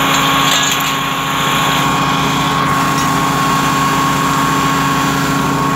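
An engine running steadily with an even low throb.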